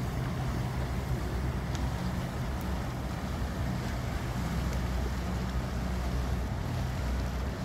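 Outboard motor of a passing small centre-console boat running steadily, a low hum that holds throughout, with a faint wash of noise over it.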